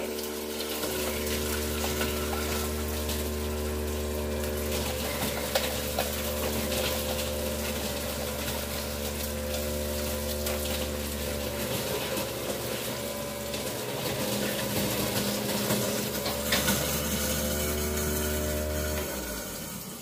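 Kitchen garbage disposal running with a steady motor hum while ice is ground in it to scour it clean, with scattered clicks over hot tap water running into the steel sink. The motor shuts off about a second before the end, leaving the running tap.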